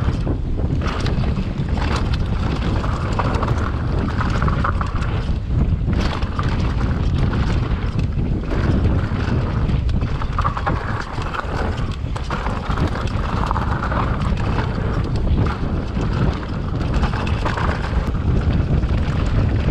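Wind buffeting a mountain bike rider's action camera at speed, with frequent knocks and rattles from the bike on rough ground.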